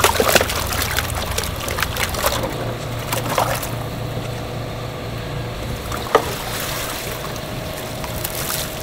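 Live fish being netted out of an aerated tank: water splashing and sloshing with a few knocks at the start and again a few seconds in, and a single sharp clack about six seconds in, over a steady low machine hum.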